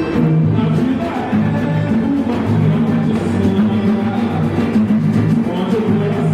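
Live band playing music with drums and percussion over sustained low notes.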